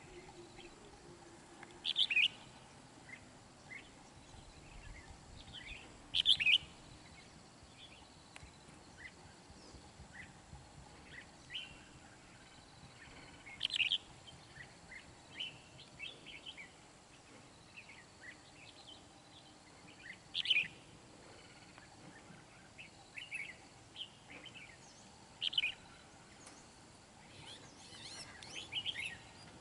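Red-whiskered bulbuls calling: short, sharp calls stand out every few seconds, with softer chirps between and a quicker run of calls near the end. These are territorial calls between a wild bulbul and a caged decoy.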